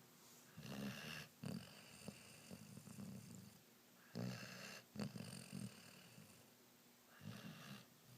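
Rhodesian Ridgeback puppy snoring in its sleep, quietly. Three louder snoring breaths come about three seconds apart, with softer breathing in between.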